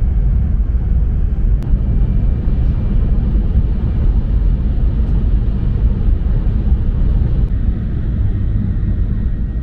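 Steady low rumble of a Tohoku Shinkansen train running at speed, heard from inside the passenger cabin, with one brief click about a second and a half in.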